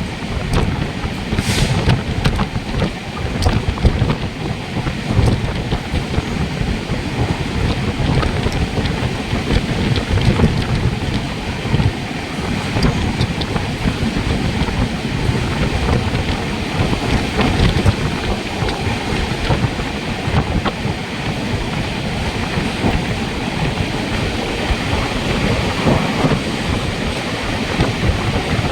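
Steady rumble and rush of a moving train, with wind buffeting the microphone.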